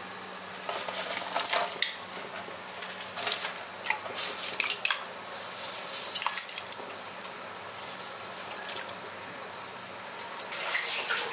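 Metal kitchenware clinking and clattering against an aluminium cooking pot in short irregular clusters every second or two, as whole spices are added to the water for cooking biryani rice.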